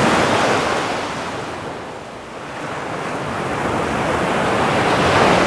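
Waves washing in: a rush of surf that eases about two seconds in and builds again toward the end.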